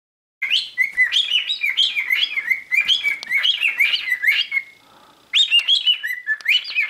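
Cockatiel chirping: a rapid string of short, quick up-and-down calls, with a brief pause about five seconds in before it starts again.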